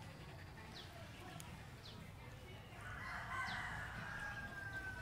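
A rooster crowing: one long call that starts about three seconds in, with a few short high chirps before it.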